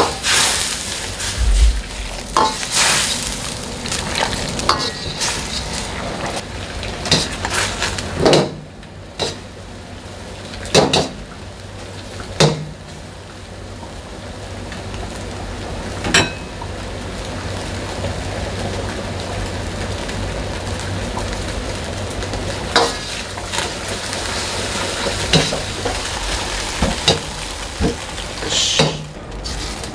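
Metal ladle scraping and clanking in a wok while a liquid sauce sizzles and bubbles over the flame. The clanks come as sharp strikes every few seconds over a steady sizzle.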